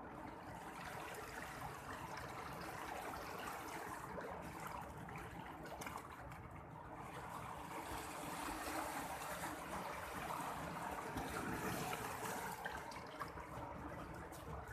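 Sea water washing and rushing on a shore as a continuous sound. It swells louder past the middle and eases off near the end.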